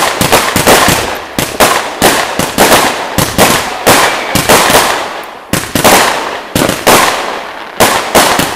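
New Year's Eve fireworks going off: a rapid, irregular string of sharp bangs, about three a second, each with an echoing tail.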